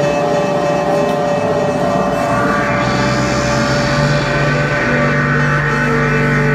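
Live electronic drone-noise music from a synthesizer and effects pedals: held tones over a dense, noisy wash. A hissing upper layer swells in about two and a half seconds in, and a deeper drone grows stronger in the second half.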